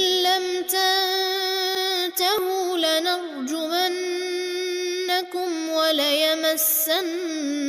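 A man reciting the Quran in melodic tajweed chant, drawing out long held notes with short gliding turns in pitch.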